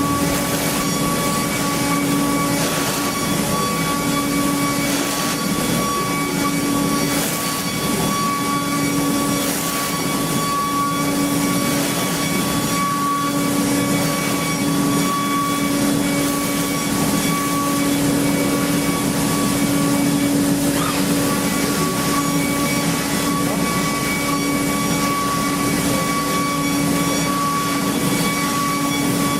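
CNC machining centre running while machining an engine block: a steady mechanical hum with constant high spindle whine tones. The whine drops out briefly about two-thirds of the way through.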